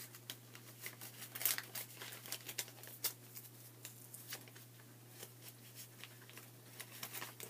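Plastic and paper packaging rustling and crinkling as items are handled and dug out of a mail-order package, with scattered short crackles and taps, busiest in the first three seconds or so.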